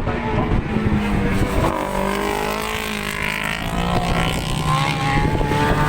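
Superbike engines running on the circuit, several pitched engine notes holding and gliding slowly, with low wind buffeting on the microphone.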